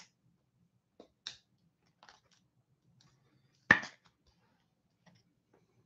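Trading cards being handled on a tabletop: a few soft clicks and rustles, with one sharper tap about two-thirds of the way in.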